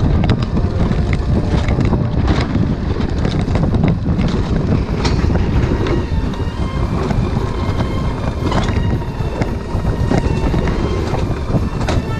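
Alpine coaster sled rolling fast along its steel rails: a steady rumble from the wheels with scattered clacks, and wind buffeting the microphone.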